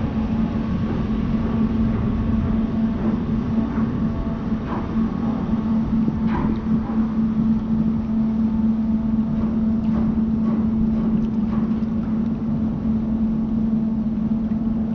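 Great Lakes bulk freighter American Century passing close by: a steady low drone from the ship's machinery, with a constant hum.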